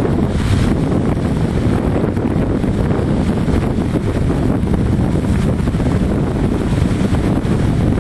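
Wind buffeting the microphone, a steady, heavy rumble that is strongest in the low end.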